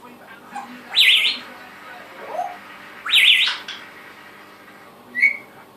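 Pet bird whistling: a quick warbling whistle about a second in, a second one about three seconds in, and a short chirp near the end.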